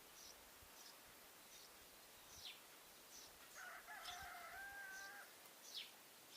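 Sparrows chirping in short, high cheeps, some sliding downward, repeated every half second or so. A rooster crows once, faintly, about halfway through.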